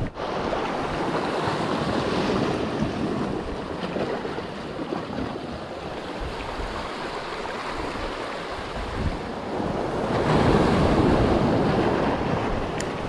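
Small sea waves washing over a rocky reef shoreline, with wind buffeting the microphone. The surf swells louder about ten seconds in.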